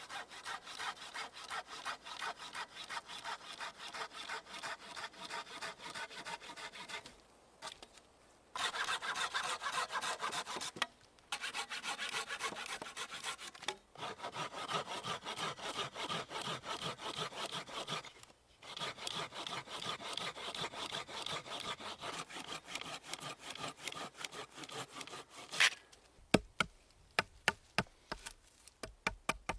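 A hand saw cutting wood with rapid back-and-forth strokes, in several long spells with short pauses between them. Near the end the sawing stops and a series of sharp knocks follows.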